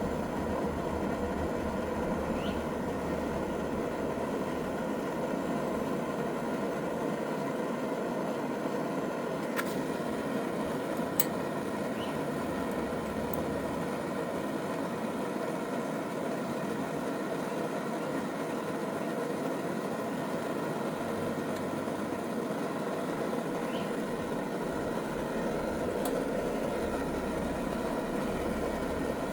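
Steady rushing of a flame heating the end of a pipe to soften it, with a couple of faint clicks about ten seconds in.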